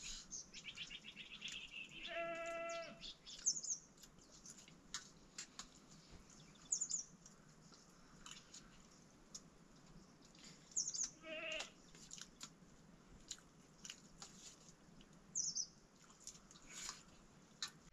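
Livestock bleating twice: a short steady bleat about two seconds in and a wavering one near the middle. A few short high bird chirps and scattered light clicks sound around them.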